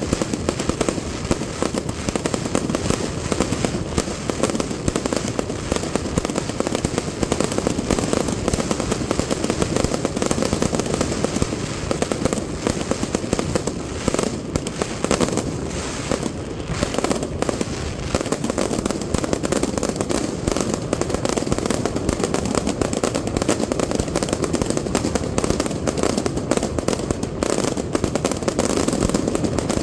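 Night fireworks display going at full pace: a dense, unbroken stream of overlapping bangs and firecracker reports with no pause.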